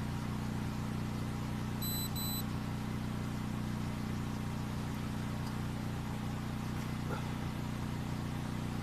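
Steady low hum of an idling car engine. About two seconds in, two short high beeps from the police body-worn camera, the periodic double beep it gives while recording.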